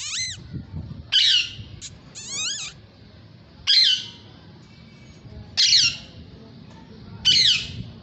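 Parakeets giving short, loud, harsh squawks, about six in all, spaced one and a half to two seconds apart; most calls fall in pitch.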